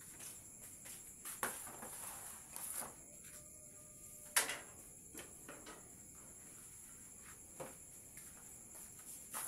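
Scattered light knocks and clatters of baking trays and pans being handled at the bakery racks, with one sharper knock about four and a half seconds in. A steady high-pitched hum runs underneath.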